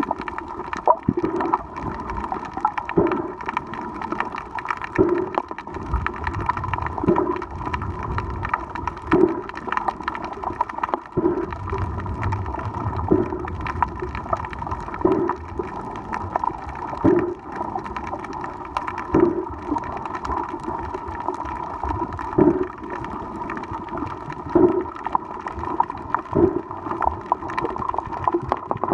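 Muffled underwater sound picked up by a camera in a waterproof housing while swimming over a reef, with a steady hum and a soft low pulse about every two seconds.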